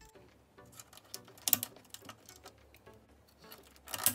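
Clicks and handling rustle as speaker wire is pressed into the Technics SU-Z15 amplifier's push-type spring-clip speaker terminals, with two sharper clicks, one about a second and a half in and one near the end.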